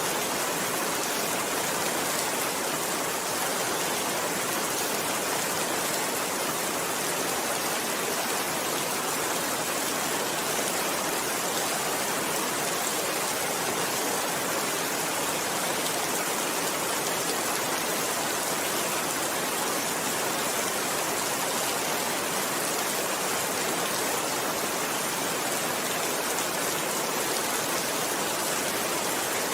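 Steady rain falling, an even hiss that never changes.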